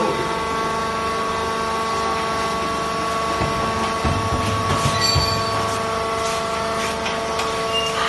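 Hydraulic clothes baler's power unit running with a steady whine. A few low knocks and rattles come between about three and a half and five seconds in.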